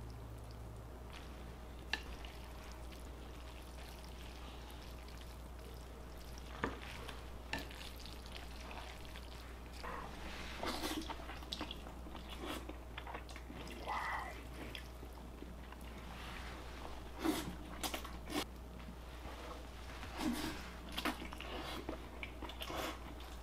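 Faint eating sounds: chopsticks clicking against a bowl, with chewing and slurping of noodles, as scattered small clicks and mouth noises over a low steady hum.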